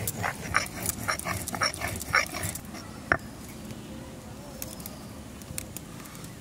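A dog barking in a quick series of short yaps, about three a second, that stops about two and a half seconds in. A single sharp knock follows about a second later.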